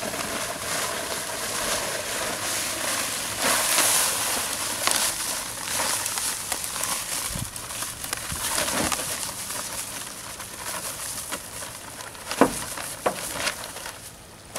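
Dry high-strength concrete mix pouring out of a paper bag into a wheelbarrow: a steady hiss of powder and grit, loudest about four seconds in. A few sharp crackles come near the end.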